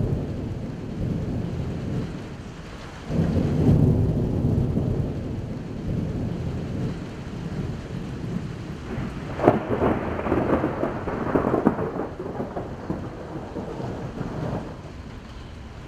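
Thunder rumbling: a long low rumble dying away, a second rumble breaking in about three seconds in, then sharp crackling cracks of nearby thunder from about nine to twelve seconds, fading out near the end. Steady rain underneath.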